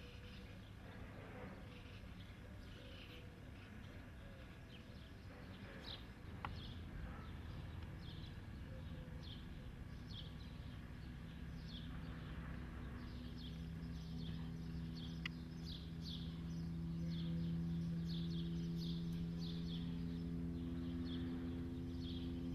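Small birds chirping over and over in short high calls. About halfway in, a low steady motor hum comes in and grows louder.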